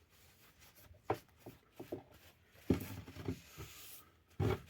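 Soft rubbing and a few light knocks as boiled linseed oil is worked by hand into a wooden axe handle.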